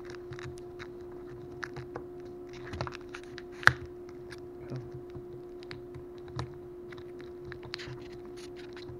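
Clear plastic blister packaging crackling and clicking as fingers work a small DC motor loose from it, with one sharper snap about three and a half seconds in.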